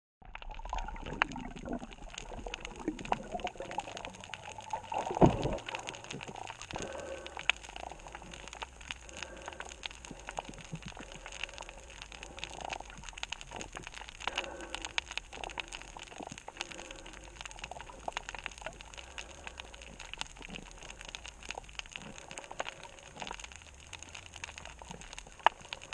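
Underwater reef ambience: a dense, irregular crackle of sharp clicks, with a single thump about five seconds in.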